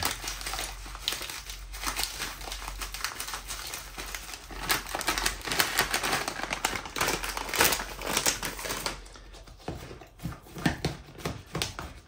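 Bag of bird seed crinkling and rustling as seed is added and worked together by hand; busiest in the middle, thinning to scattered crackles near the end.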